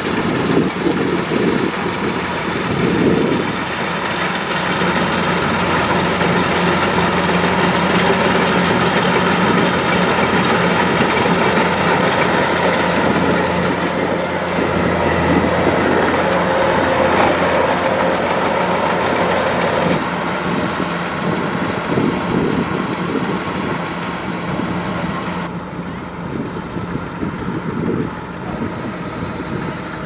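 Kubota DC-105X rice combine harvester at work: its diesel engine runs steadily under load along with the cutting and threshing machinery.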